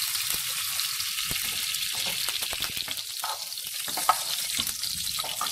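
Ghee sizzling as it melts in a hot nonstick frying pan, pushed around by a spatula, with a steady hiss and scattered clicks and pops, one sharper click about four seconds in.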